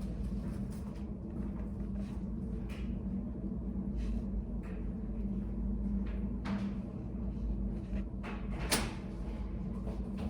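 Study cafe room tone: a steady low hum with occasional small knocks and rustles, and one sharp click or clack near the end, like a cupboard or locker door.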